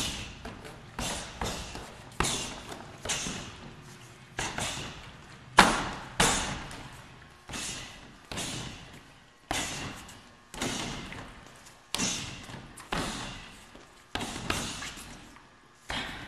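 Strikes landing on a Century Wavemaster XXL freestanding heavy bag: a string of thuds, one or two a second, each trailing off in the room's echo. The hardest hit comes about five and a half seconds in.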